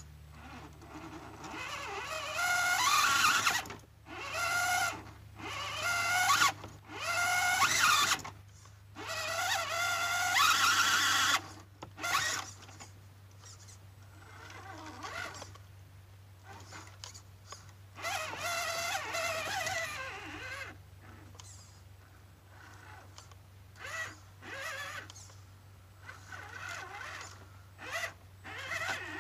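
Axial UMG10 RC crawler's electric motor and geartrain whining in repeated throttle bursts, the pitch rising within each burst, with short pauses in between.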